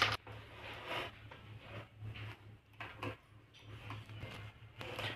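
Insulation being stripped off an electrical wire with a hand tool: a sharp click at the start, then irregular scraping and handling sounds, over a steady low hum.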